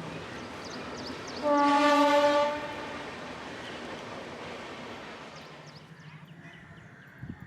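A horn sounds one steady, even-pitched blast lasting about a second, over a steady rushing background noise that fades out after about five and a half seconds.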